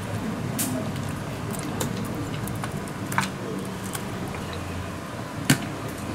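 Eel fillets being threaded onto long metal skewers on a wooden board: soft squishing with scattered sharp clicks and taps of the skewers, the loudest knock about five and a half seconds in, over a steady low hum.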